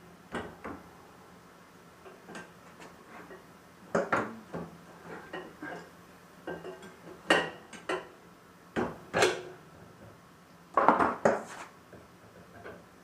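Metal wheel-balancer adapter pieces clanking and clinking as they are handled, removed and set down. The sound is a series of separate knocks, with the loudest cluster near the end.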